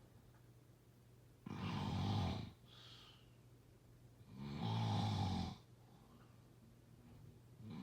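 Snoring: two long snores about three seconds apart, each lasting about a second, with the next one starting near the end.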